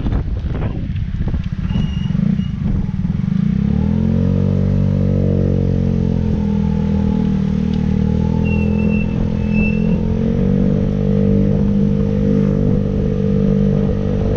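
Motorcycle engine running, rising in pitch about four seconds in and then holding a fairly steady note as it rides along.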